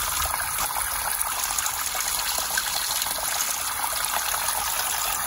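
Water trickling and dripping off a mossy rock ledge into a shallow pool: a steady, even splashing.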